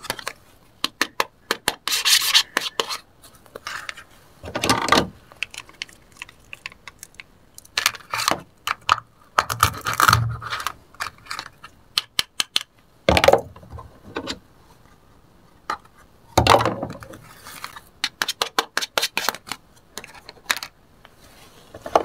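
Hands handling plastic toy kitchen food and utensils, pulling a plastic toy fish apart into halves. Rasping rubs and scrapes with scattered sharp clicks and taps of plastic come in short, irregular bursts with quiet gaps between.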